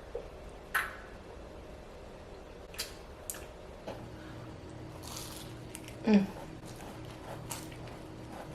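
Close-up eating sounds: soft chewing and squishing of seafood-boil food, with a few sharp clicks and a short vocal murmur about six seconds in.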